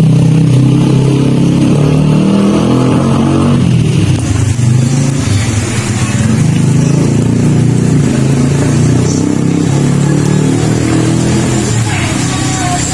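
A motor vehicle's engine running loudly, its pitch shifting up and down as it revs.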